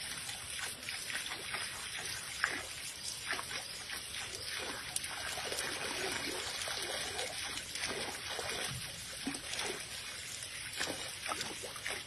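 Water trickling from a garden hose onto a raccoon's paws and into a plastic basin, with small irregular splashes as the paws rub under the stream.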